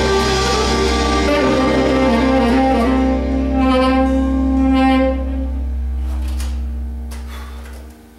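Tenor saxophone playing a blues line over a backing track, settling into a long held low note about two and a half seconds in. After that the music dies away, fading out over the last few seconds.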